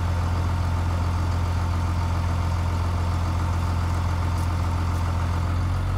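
Truck-mounted crane's engine running steadily at idle, a low, even drone.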